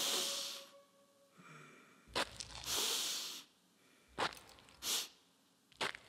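Three breathy, hissing exhalations, the middle one the longest, with short sharp clicks before the second and third and once more near the end, and dead silence between them.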